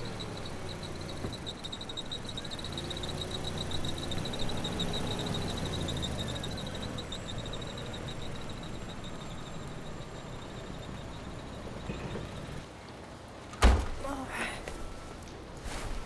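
Ambience with a steady high-pitched pulsing trill over a low rumble; the trill fades out about halfway through. Near the end comes a single sharp thud, like a door shutting, followed by a few lighter knocks.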